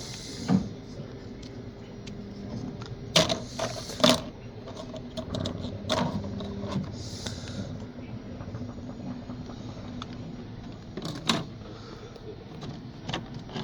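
3D printer running: a steady motor hum with irregular sharp clicks and knocks.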